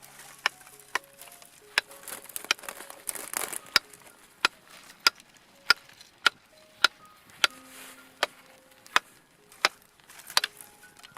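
Kitchen knife chopping on a wooden cutting board in a steady rhythm, roughly one and a half strokes a second, over soft background music.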